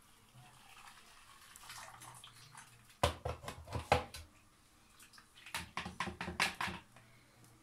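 Blended liquid poured from a blender jug through a plastic mesh sieve into a plastic bowl: splashing in two bursts, about three seconds in and again about five and a half seconds in, mixed with quick knocks of the sieve against the bowl.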